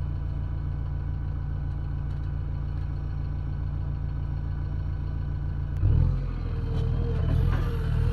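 JCB 3DX backhoe loader's four-cylinder diesel engine running steadily at low revs. About six seconds in it revs up and gets louder, with a steady whine and a few clanks as the machine starts working.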